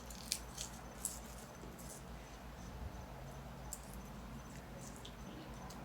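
Peanut shells crackling as a child cracks open and eats peanuts: a few short, crisp cracks, mostly in the first two seconds and once more near four seconds, over a low steady hum.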